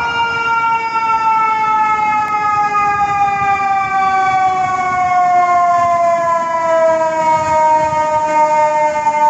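Fire engine siren, just wound up, slowly falling in pitch throughout as it winds down: one long wail with a stack of overtones, from a fire engine running with lights and siren to an emergency call.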